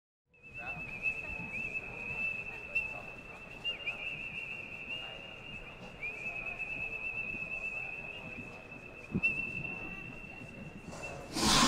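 A steady high whistling tone holds one pitch with a slight waver for about eleven seconds, over a faint low background ambience with occasional soft ticks. A short loud rush of noise comes just before the end.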